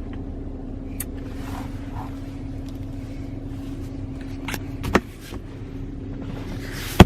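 A 2016 GMC Canyon idling steadily, heard from inside the cab, with a few small clicks from the interior. Near the end a loud click comes as the hum cuts off abruptly.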